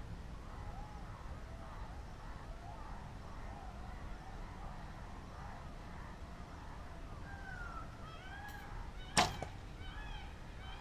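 A recurve bow is shot near the end: one sharp string snap as the arrow is loosed. Birds call repeatedly throughout.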